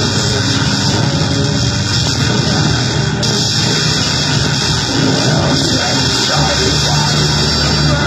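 Loud, dense distorted noise from an effects pedal under test, a harsh wash with no clear notes. A steady low hum joins about six seconds in.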